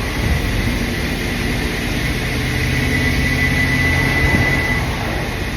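GM-engined food truck running and under way, a steady low engine drone with a thin high whine over it.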